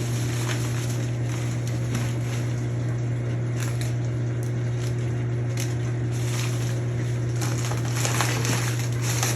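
Plastic food packaging and garbage bags rustling and crinkling in short bursts as spoiled food is cleared out of a fridge, busiest near the end. Under it runs a steady low machine hum.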